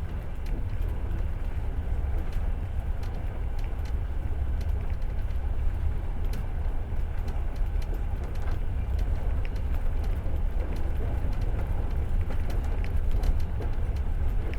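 Passenger train running, heard from inside the carriage: a steady low rumble of wheels on rail with scattered light clicks and rattles.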